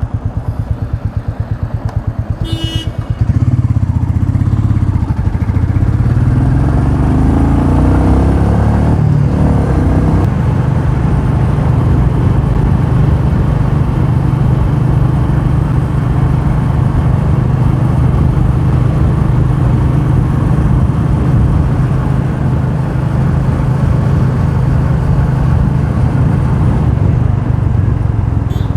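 Royal Enfield Meteor 350's single-cylinder engine running at low revs with a slow pulse, then pulling away and rising in pitch through several gear changes over a few seconds before settling into a steady cruise, with wind rushing over the helmet-mounted microphone.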